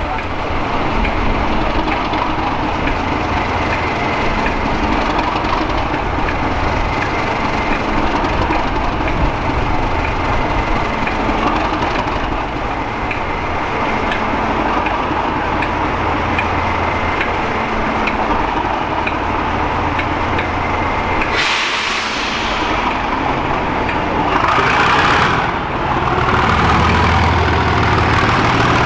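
Class 37 diesel-electric locomotive's English Electric V12 engine running loudly and steadily. About two-thirds of the way through comes a sudden burst of rushing hiss, and a second burst follows a few seconds later.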